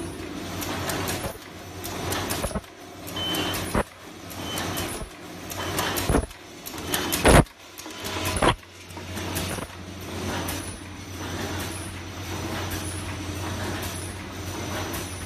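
Automatic plastic zipper bag making machine running, its noise swelling and falling about once a second with each machine cycle. A few sharp clacks come through, the loudest about halfway. In the second half it settles into a steadier hum.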